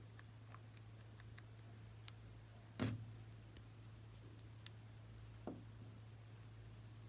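Quiet handling of small objects on a tabletop: scattered faint clicks, one sharp knock about three seconds in and a softer thump a few seconds later, over a low steady hum.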